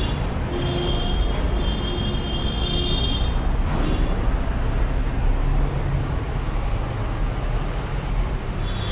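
Steady low rumble of motor traffic. A high squeal sounds from about half a second in for roughly three seconds.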